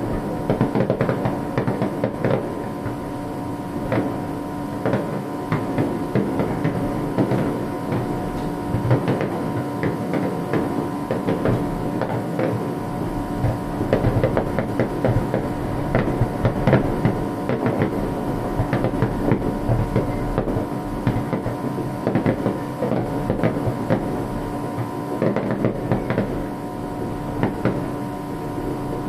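Fireworks display: a dense, continuous string of small bursts and crackles, over a steady low hum.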